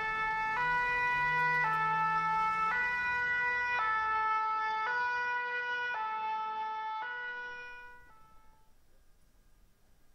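French fire engine's two-tone siren, switching between a high and a low note about once a second. It fades away about eight seconds in.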